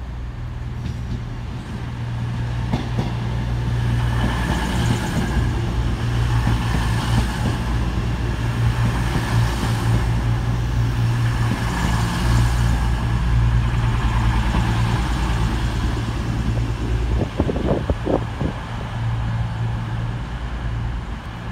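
CrossCountry Class 221 Super Voyager diesel-electric multiple unit pulling into the platform, its underfloor diesel engines humming steadily as it rolls slowly past, with wheel and rail noise. About seventeen seconds in the engine hum drops as the train draws to a stand, and a few short knocks follow.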